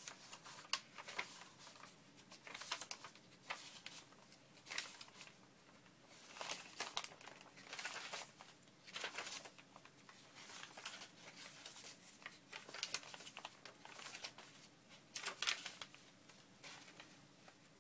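Sheets of paper being turned over one by one while a stack of journal pages is leafed through: soft, irregular swishes and crinkles, about one every second or two.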